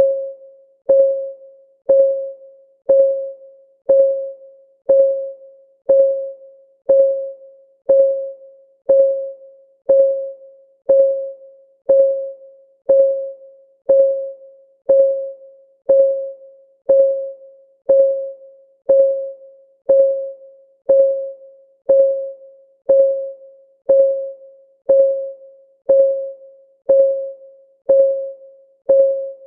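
Clock ticking of a countdown timer: a steady tick about once a second, each tick short, with a slight ring that dies away quickly.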